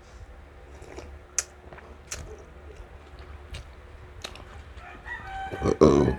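A rooster crowing: one long call near the end that rises and is the loudest sound. Before it there are scattered light clicks and taps.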